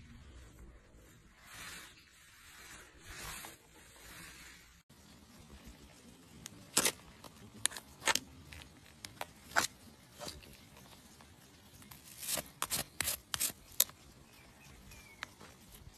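Soft brush strokes rubbing over a horse's hoof wall, then a hoof pick scraping packed dirt out of a shod hoof. The pick makes sharp clicks and scrapes against the sole and the metal horseshoe, several in quick clusters near the middle and end.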